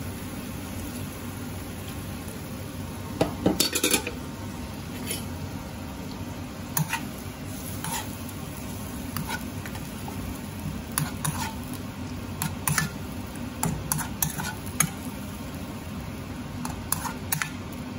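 Metal spoon stirring and scraping in a metal wok, with sharp clinks of spoon on pan at irregular intervals, the loudest cluster about four seconds in. Underneath, a steady low sizzle from the spiced onion masala cooking as milk is stirred into it.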